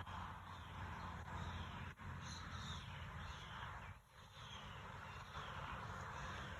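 Steady outdoor ambient hiss with a low hum underneath and faint, short bird chirps; the sound dips briefly twice.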